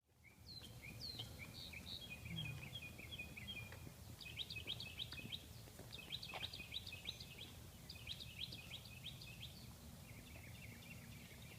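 Small birds chirping and twittering in quick clusters of short, high notes over a low, steady outdoor rumble.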